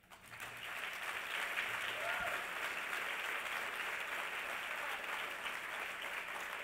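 Audience applauding. It starts abruptly, holds steady and begins to fade near the end.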